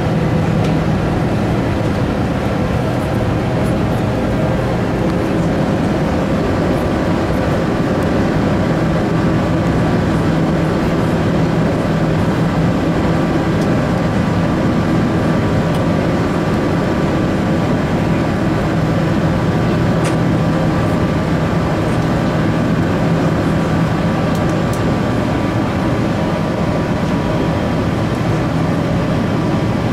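Steady cabin noise inside an Airbus A380-800 powered by Rolls-Royce Trent 900 engines: a rush of engine and airflow noise with a steady low hum and a few fainter steady higher tones.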